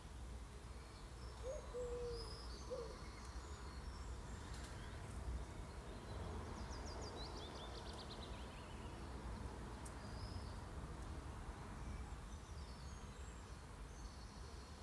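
Faint garden ambience: scattered high birdsong chirps with a quick falling trill of repeated notes midway, and a few low hooting bird calls in the first few seconds, over a steady low rumble.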